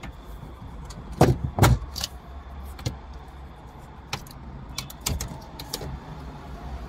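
Hands working on a car's plastic dashboard trim around the head unit, making a series of sharp plastic clicks and knocks, the two loudest about a second in, over a low steady hum.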